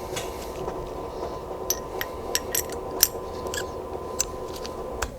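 Small metal and rubber-sealed parts of a pneumatic reset relay clicking and tapping as the shaft and components are slid back into the relay body, a dozen or so light clicks. A steady hum with a few fixed tones runs underneath and stops just before the end.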